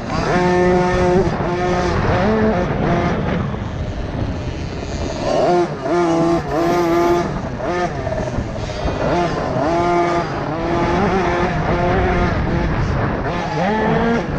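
Kids' 50cc two-stroke motocross bikes racing, engines revving, their pitch repeatedly climbing and dropping as the throttle opens and closes.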